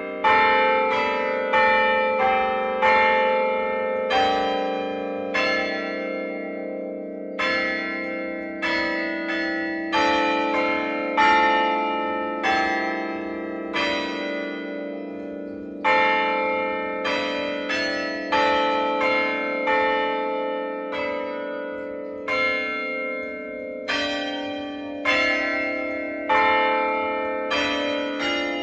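Church tower bells struck one after another on different notes, about one stroke a second at an uneven pace, each bell ringing on beneath the next.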